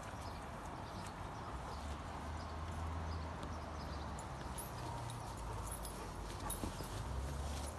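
Irish Setter puppies scampering and tussling in grass: light rustling with small scattered clicks and a low rumble that swells twice. Faint short high chirps come now and then.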